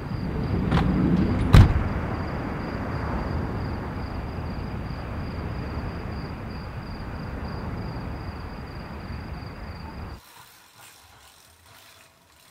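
Evening ambience on a shingle beach: a steady rush of noise with a thin, high, evenly pulsing insect trill above it, and one sharp loud knock about one and a half seconds in. Near the end it drops abruptly to a much quieter stretch with a few faint clicks.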